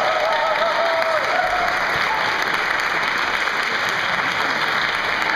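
Audience applauding, with a few long wavering whoops from the crowd in the first second or so.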